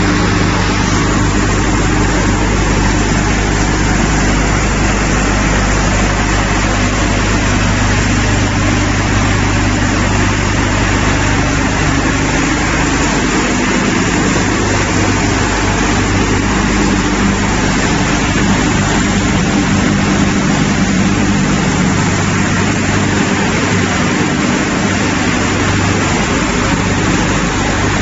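Wood pellet production line machinery running steadily: an even, loud mechanical noise with a constant low hum from electric-driven plant equipment such as fans, conveyors and airlock feeders.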